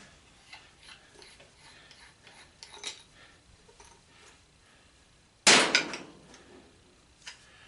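Faint clicks of tools and brass faucet parts being handled, then a loud, sharp metal clank about five and a half seconds in, followed by a couple of quick rattles and a lighter click near the end.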